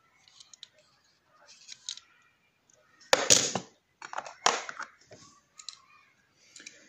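Handling noises of small die-cast toy cars: light rustles and clicks, then two louder clattering rattles about three and four and a half seconds in as cars are put down and picked up from the collection.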